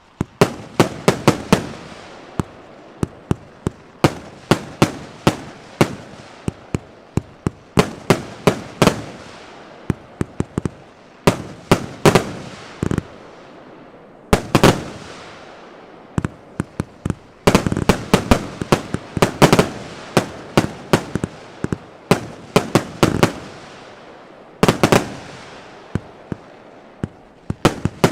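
Evolution Fireworks Tukkerbox 1 firework box going off: volley after volley of sharp bangs in quick clusters, each followed by a fading hiss, with short lulls between the volleys.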